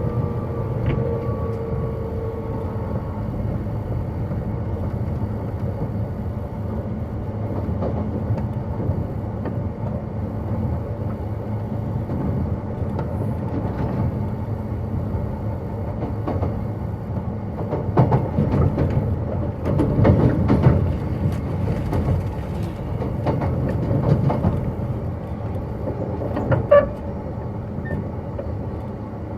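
Running sound heard inside a JR 185 series electric train cruising between stations: a steady low rumble of wheels on rail. A denser patch of rail-joint clatter comes in the latter half, and a brief sharp sound is heard near the end.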